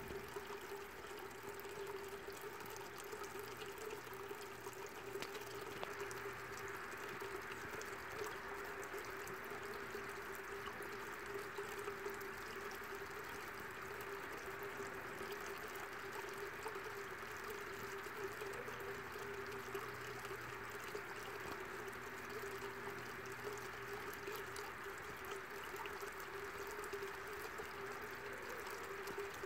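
Small stone water feature spilling into a garden pond, a steady trickling splash, with a steady hum running underneath.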